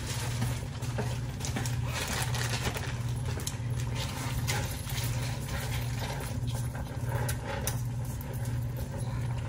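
Cooking dip in a pan: scattered light clicks and knocks of a utensil working the pan over a steady low hum.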